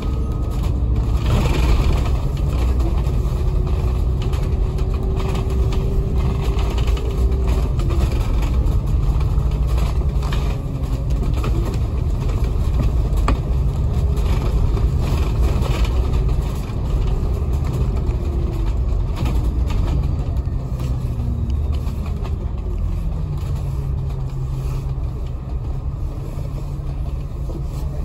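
Diesel bus engine and drivetrain heard from inside the cabin while under way: a low rumble under a whine that rises, holds and falls in steps as the bus changes speed, the sound the title nicknames 'hair dryer'. About 20 seconds in the whine slides down and settles to a lower steady hum as the bus slows.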